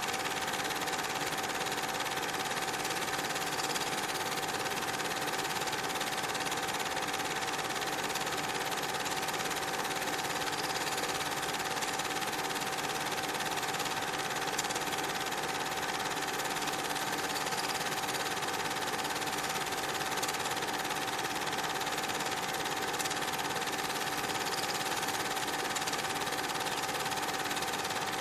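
Steady mechanical whirr and clatter with a constant high whine, unchanging throughout.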